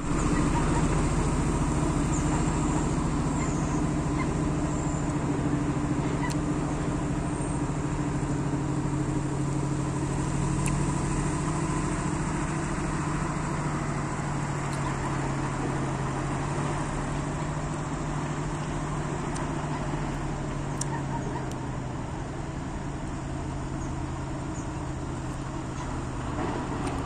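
Diesel engine of heavy quarry machinery running steadily with a low hum, slowly growing a little quieter.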